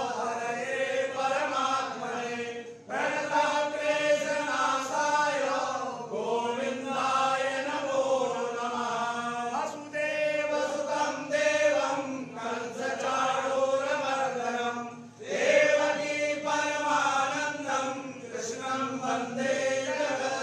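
Male chanting of Hindu mantras during a puja, in long melodic phrases with short pauses for breath every few seconds.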